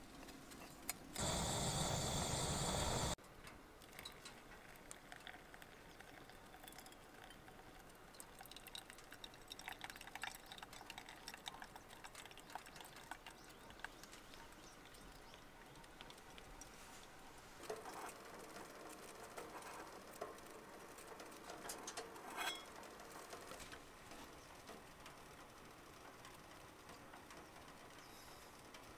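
Faint rain patter on a camper van with scattered small clicks and rustles from hands handling a paper drip-coffee bag and a steel mug. About a second in, a loud rushing noise lasts about two seconds and cuts off suddenly.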